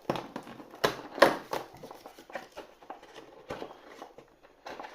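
Cardboard advent calendar door being pushed and torn open and the small plastic piece inside handled: a run of scratchy crackles and sharp clicks, loudest about a second in.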